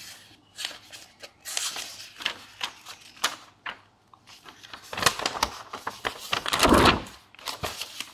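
Paper sheets being handled and turned over: a series of irregular clicks and light knocks, then a louder rustle of paper that peaks about six to seven seconds in.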